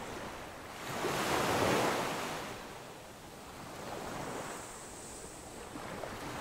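Surf breaking and washing up a sandy beach, the wash swelling loudest about a second in and again, more softly, around four seconds in.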